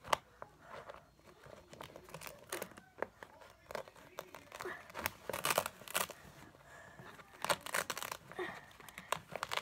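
Crinkling and rustling handling noise with sharp crackles and clicks, growing busier about halfway through, as something papery or plastic is handled close to the microphone.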